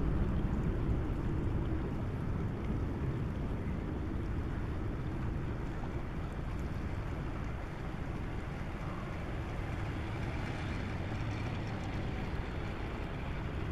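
Steady low rumble of an inland motor cargo ship passing under way, its diesel engine and the water along the hull.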